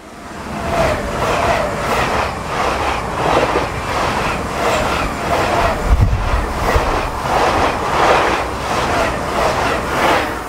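Passenger train passing at speed on the adjacent track: a loud rush of wheels on rail with a regular clatter of bogies over the rail joints, about two beats a second. It builds up in the first second and starts to fade near the end.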